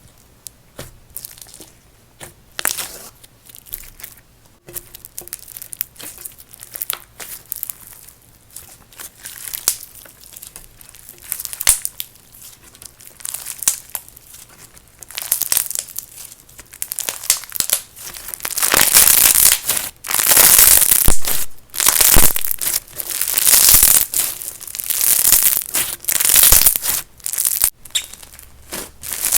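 Slushy clear slime swirled with bingsu beads being squeezed and worked by hand, giving a crunchy crackle. The crunching grows louder past the halfway point and comes in a string of squeezes about every second or two.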